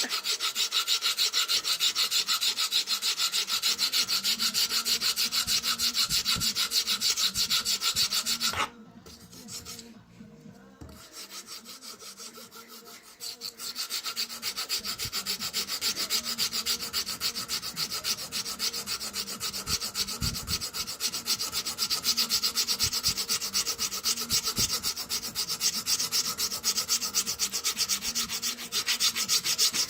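Hand file rasping a thin wooden blind slat in rapid back-and-forth strokes. It stops abruptly about nine seconds in, goes on more faintly for a few seconds, then picks up again to full strength.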